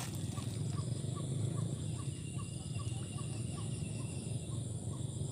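Rural outdoor ambience: a steady high insect drone over a low rumble, with a soft chirp repeating about three times a second.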